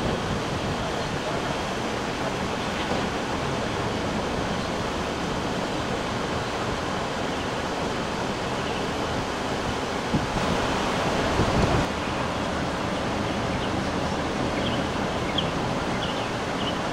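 Steady rushing noise of wind and road noise from a slowly moving car, with a louder swell about ten seconds in.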